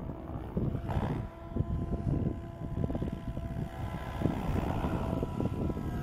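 SAB Goblin 770 electric RC helicopter in flight, its motor and rotors giving a steady whine of several held tones. Gusty wind buffets the microphone underneath.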